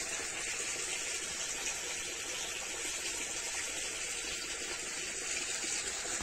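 Water gushing steadily from a pipe into a fish tank during a water change.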